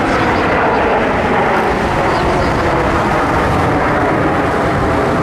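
Steady, loud jet noise from a formation of Aermacchi MB-339 PAN trainer jets, each with a single turbojet, flying overhead in close formation.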